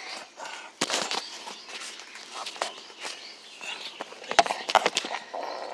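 Handling noise from a phone being moved about at close range: scattered rustles and knocks, loudest about a second in and twice around four and a half seconds in.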